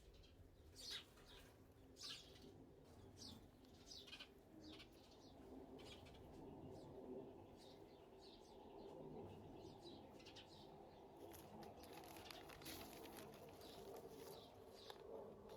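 Faint small-bird chirping: short, sharp high calls repeating every half second or so, over a soft steady low background.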